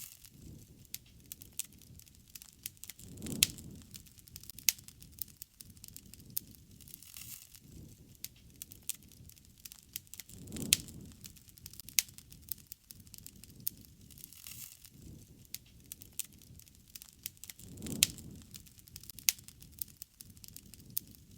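Wood campfire crackling, with frequent sharp pops and snaps. A low rushing swell comes up three times, about every seven seconds.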